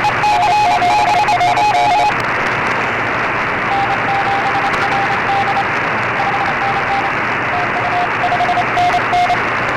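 Shortwave receiver on the 20-metre amateur band in USB mode: steady band hiss with Morse code (CW) tones keyed on and off. Two beeping signals at slightly different pitches overlap for about the first two seconds. Then the hiss turns duller and a fainter single Morse signal keys on and off from about four seconds in.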